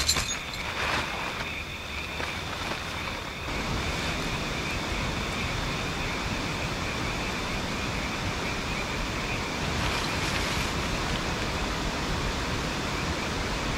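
Steady outdoor ambience: an even rushing noise with a constant high whine in two pitches on top. The rushing grows fuller about three and a half seconds in. A couple of short knocks come at the very start.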